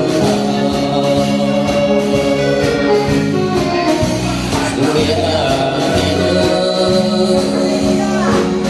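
A man singing through an amplified microphone over band accompaniment with bass, drums and keyboards.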